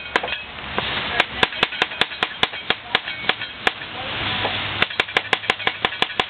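Kitchen knife chopping apple on a wooden cutting board into julienne strips. The blade knocks on the board in steady runs of about four strokes a second, broken by two short pauses.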